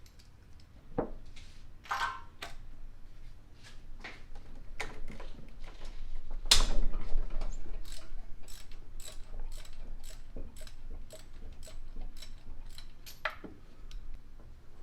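Ratchet wrench clicking as a spark plug socket is turned on a Foxbody Mustang engine, with an even run of clicks about two to three a second in the second half. There is a louder metallic clatter a little past the middle.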